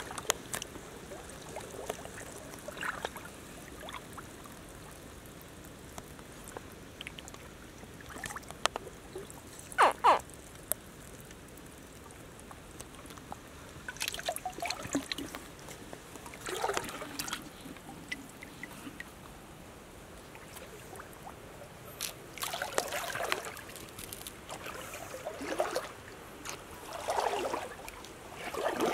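Shallow muddy water trickling and dribbling, with scattered brief sounds; the loudest is a short, sharp one about ten seconds in.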